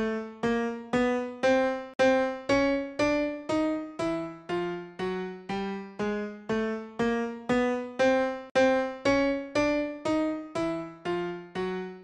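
Software grand piano playing a Shepard tone: single notes struck about two a second, each a small step higher than the last, on two tracks whose volumes cross-fade so the climbing scale loops round and seems to rise endlessly.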